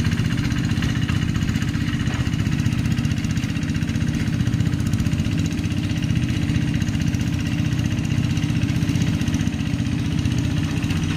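Walk-behind hand tractor's single-cylinder diesel engine running steadily under load as it pulls a plow through the wet paddy.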